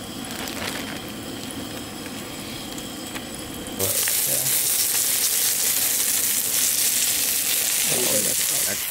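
Smallmouth bass fillets frying in oil in a skillet on a propane camp stove, with a steady sizzle. The sizzle gets much louder and brighter about four seconds in.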